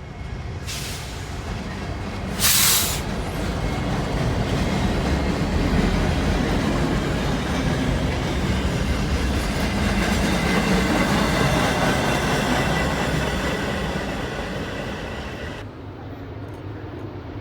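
A train rolling past close by: a steady rumble of wheels on rail that swells through the middle, with faint steady wheel squeal. A short loud hiss comes about two and a half seconds in, and the sound drops off abruptly near the end.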